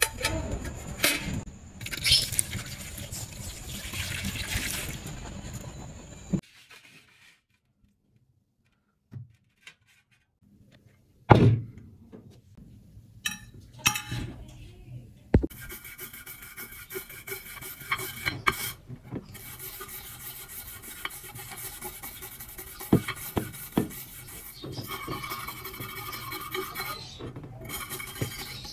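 A rusty knife blade is handled against a metal tray and a glass baking dish, with a few sharp knocks and clinks. After that comes a steady rubbing and rasping as a small stiff brush scrubs rust from the blade in the dish.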